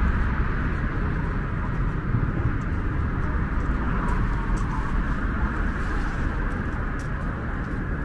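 Wind buffeting the microphone in a constant rumble, over a steady hiss of road traffic.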